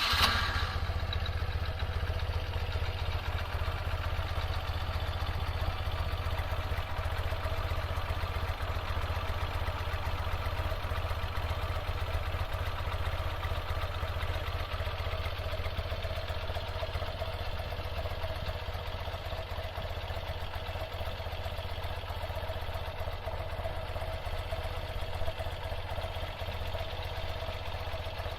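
BMW R100RS air-cooled flat-twin engine idling steadily just after being started.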